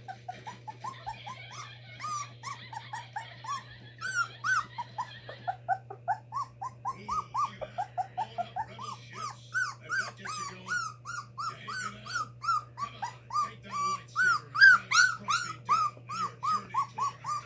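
Three-week-old pit bull puppy whining over and over in short, high-pitched cries, about two or three a second, louder from about four seconds in. She is whining while her mother is out of the room.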